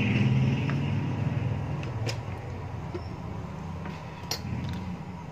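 Steady low background hum, strongest at the start and slowly fading, with a few light clicks and taps as small phone parts are handled on a rubber repair mat.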